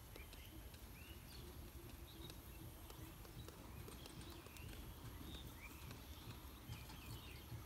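Faint outdoor ambience: short bird chirps here and there over a low, steady rumble.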